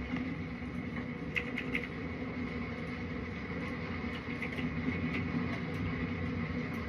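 Steady low machine hum with a faint constant whine, and a few soft small ticks about a second and a half in and again around four and a half to five seconds in.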